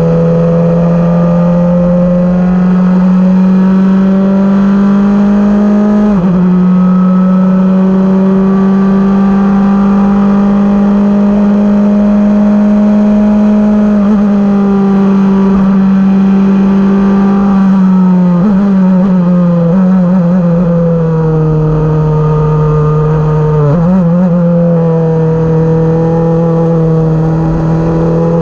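Onboard engine sound of a 2012 Van Diemen F2000 open-wheel race car at speed on track. The engine note holds high and climbs slowly along each straight, dipping at gear changes about 6 and 14 seconds in, with choppy downshifts around 18 and 24 seconds in.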